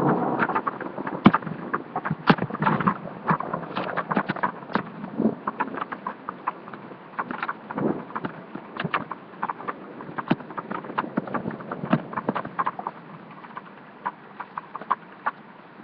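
Heavy rain in a thunderstorm: many irregular sharp taps and clicks of raindrops striking close to the laptop's microphone, over a steady hiss of rain, busiest in the first few seconds.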